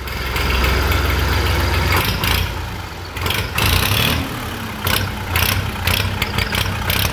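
Massey Ferguson 240 tractor's three-cylinder diesel engine running; the steady note turns uneven about two seconds in.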